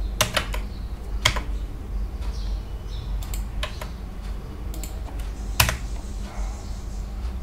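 Computer keyboard keystrokes, sparse and irregular, as lines of code are split and indented. A steady low hum runs underneath.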